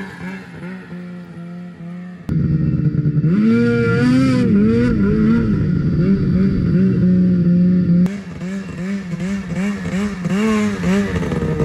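Ski-Doo 600 RS race snowmobile's two-stroke engine revving up and down again and again as the sled is ridden over grass. It is loudest from about two seconds in to about eight seconds in, then the revs rise and fall in quick bursts.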